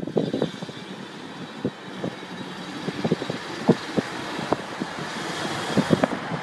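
Mercedes car under acceleration, the overall noise building steadily, with irregular sharp ticks and pops through it. This is the noise that appears only under load, which the owner cannot place between an exhaust leak and a bearing.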